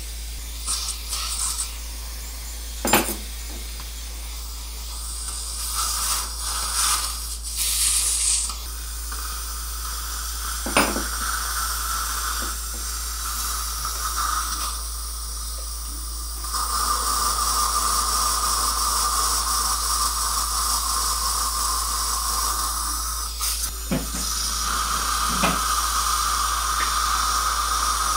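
A steady hiss with a few sharp instrument clicks. About halfway through, a surgical implant handpiece starts drilling in the extraction socket: a steady high whine over the hiss of its irrigation water.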